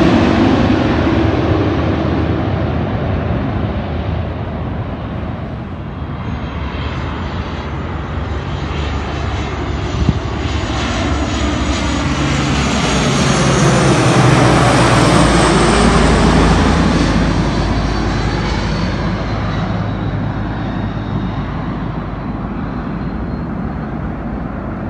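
Jet airliner engines passing low overhead: the noise of one jet fades away over the first few seconds, then a four-engined regional jet on approach builds up, passes over with a sweeping, phasing hiss loudest about halfway through, and fades again.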